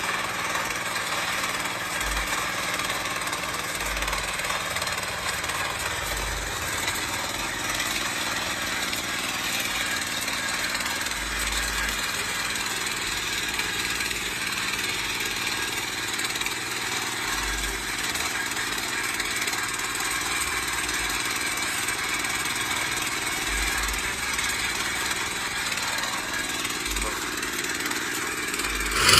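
Mini power tiller's single-cylinder petrol engine (GX240-type, 8 HP) running steadily, a continuous mechanical clatter at an even level.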